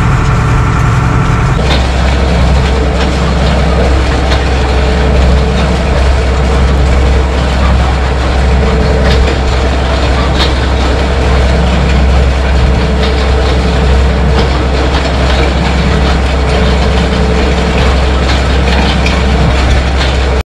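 Case tractor engine running steadily, heard inside its cab; about a second and a half in, the sound switches to close up on a towed spike aerator: its steel spiked roller and rusty frame clatter and rattle as the spikes slit the ground, over a steady low rumble.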